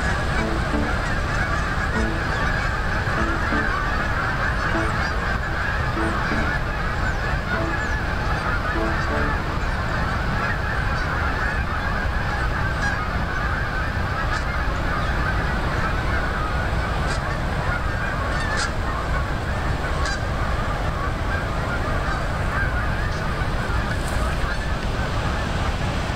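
A large flock of geese honking continuously, many calls overlapping into a steady clamour, over a steady low rumble.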